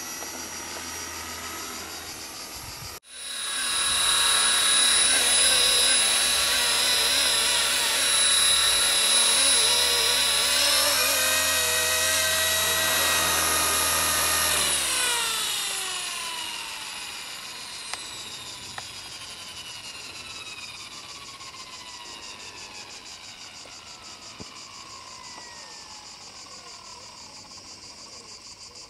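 Blade SR electric RC helicopter's motor and rotors whining: faint and distant at first, then cutting off about three seconds in and returning much louder and closer. From about fifteen seconds in the motor and rotor head spool down, and the whine falls steadily in pitch over some ten seconds as the blades slow.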